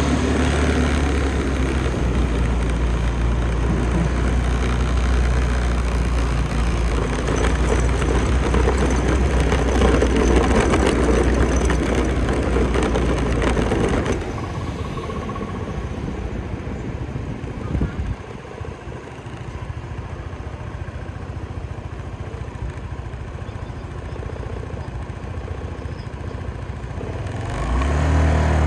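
Motor scooter riding through city traffic: its engine and road noise run loud and steady, drop sharply quieter about halfway through, and rise again near the end. A single short knock comes a few seconds after the drop.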